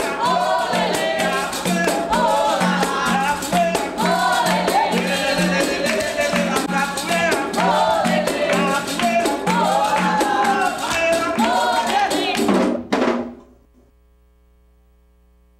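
Latin American-style music with a singer and a steady percussion beat. It stops about thirteen seconds in, leaving only a faint steady hum.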